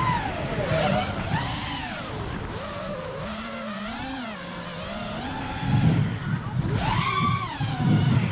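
FPV quadcopter's motors whining in flight, the pitch swooping up and down with quick throttle changes through freestyle manoeuvres, with heavier low rumbling about six and eight seconds in.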